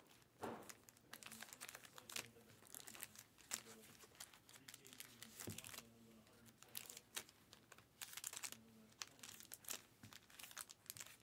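Faint rustling, crinkling and light plastic clicks from hands handling stacked trading-card boxes, with their foam inserts and cased cards, on a mat.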